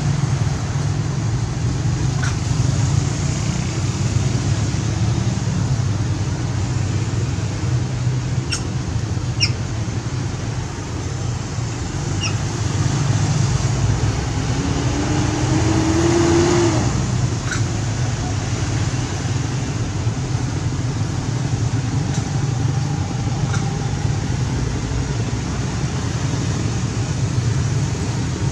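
Steady low outdoor rumble like distant road traffic, with a few short high-pitched chirps scattered through it and one brief rising tone about two-thirds of the way in.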